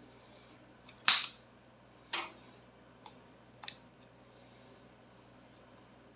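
A handful of short, sharp snaps or clicks over a faint steady hum: a loud one about a second in, a second one a second later, then a faint tick and a last snap before the four-second mark.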